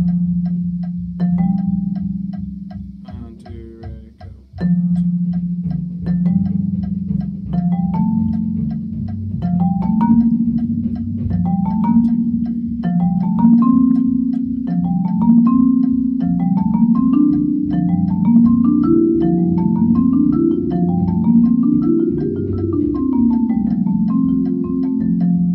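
Marimba played with soft yarn mallets in its low register: a steady stream of notes in stepwise patterns, each group starting a little higher, climbing to a peak near the end and then stepping back down. There is a short break about three seconds in.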